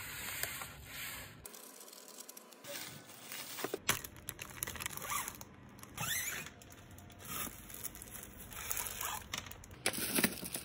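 Clear plastic packaging crinkling and rustling as it is handled: a canvas pouch is slid out of a plastic zip bag, then plastic-wrapped stainless steel roasting sticks are handled, with a few light clicks.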